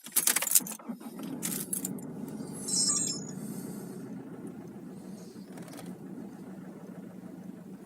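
2005 Nissan Pathfinder R51's 2.5-litre four-cylinder turbodiesel running cold, with a steady low engine hum and a few loud rattles in the first two seconds and a brief high-pitched sound about three seconds in. This is the cold-start misfire that goes away once the engine has warmed up.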